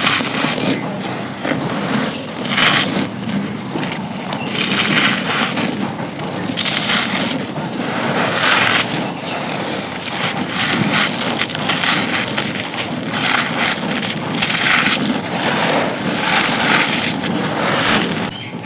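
Broken slabs of dry black concrete being crushed and crumbled, a dense gritty crunching that comes in repeated bursts about once a second.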